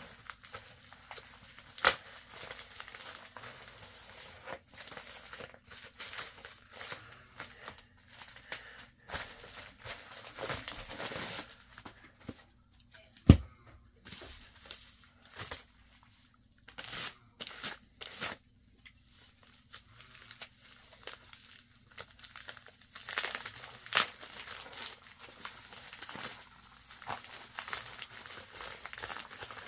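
A USPS Priority Mail padded mailer being opened and handled, in irregular crinkling and tearing rustles with short pauses. A single sharp knock about 13 seconds in is the loudest sound.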